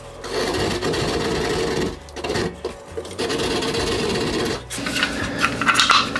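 A saw cutting into sheetrock to enlarge the hole for an electrical box: a dense rasping in three stretches, broken by short pauses about two seconds in and just before the end.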